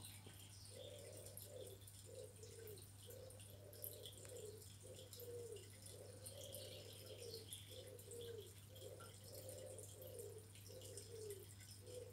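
Near silence: a steady low hum under a faint, low cooing call, repeated as a string of short, slightly falling notes.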